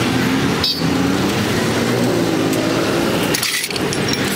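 Motor vehicle engine running steadily close by amid street traffic, a continuous drone that shifts in pitch a few times.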